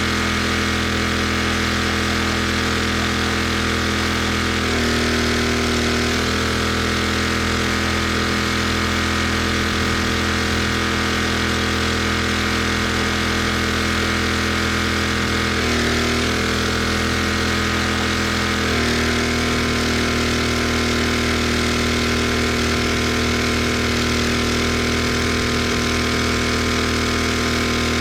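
A pressure washer's engine running steadily. Its note shifts about five seconds in and again around sixteen seconds, then settles at a new steady pitch about nineteen seconds in.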